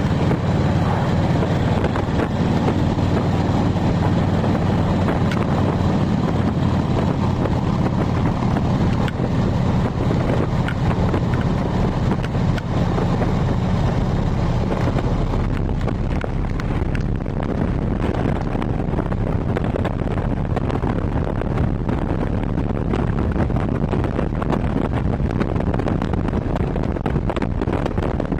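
Harley-Davidson V-twin motorcycle engine running steadily at cruising speed, with wind noise over the microphone.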